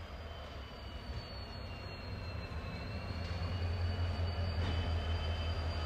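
Diesel locomotive passing slowly at the head of a freight train: a steady, deep engine hum with a high whine that glides down about halfway through and then back up. It grows louder in the second half.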